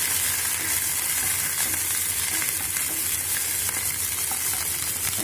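Sliced onions sizzling steadily in hot oil in a nonstick frying pan as they are sautéed, stirred with a wooden spatula that taps and scrapes lightly against the pan.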